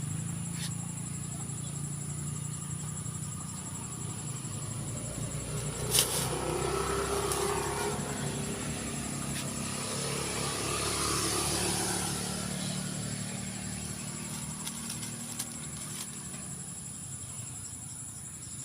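Insects trilling steadily in two high tones over a low hum, while a motor vehicle passes, growing louder about halfway through and then fading. A single sharp click about six seconds in.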